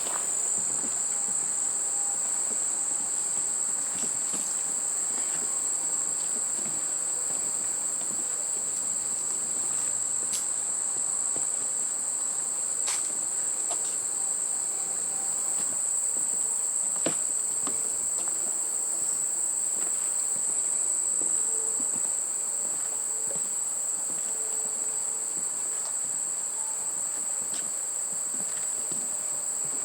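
Steady, high-pitched insect chorus, unbroken throughout, with a few faint clicks scattered over it.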